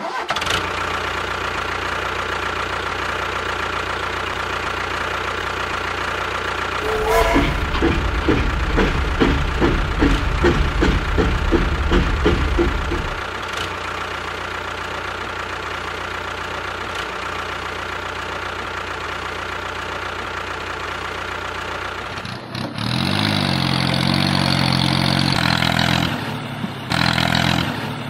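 Tractor engine running steadily. A few seconds in it chugs rhythmically for several seconds, then settles back to a steady run. Near the end it changes to a louder, more tonal note.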